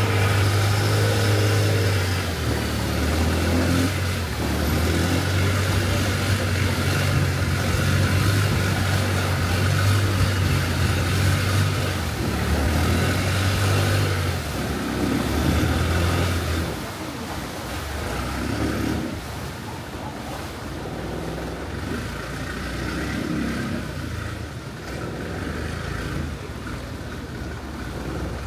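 Longtail boat's engine running steadily under way, with the rush of water and wind past the boat. A little over halfway through the engine note drops and the boat runs quieter.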